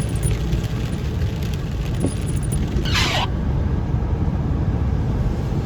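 Road and engine noise inside a moving car: a steady low rumble, with one brief hiss about three seconds in, on rain-soaked roads.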